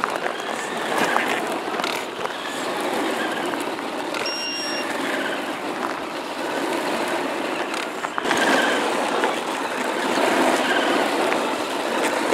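Radio-controlled scale off-road truck driving and turning on loose gravel, its tyres crunching and scattering stones. A short electronic beep a little over four seconds in.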